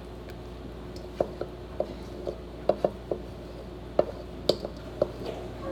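A spoon knocking and scraping against bowls as potato salad is spooned from one bowl into another: about a dozen light, irregular clinks and taps over a steady faint hum.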